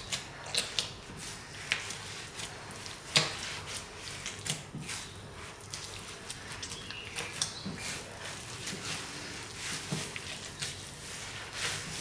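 Hands kneading a greasy wheat-starch dough worked with pork lard on a countertop: irregular sticky squishes and rubbing, with sharp smacks, the loudest about three seconds in.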